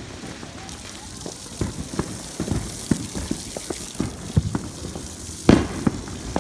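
Fireworks going off in the distance: a string of irregular pops and crackles, with one louder bang about five and a half seconds in.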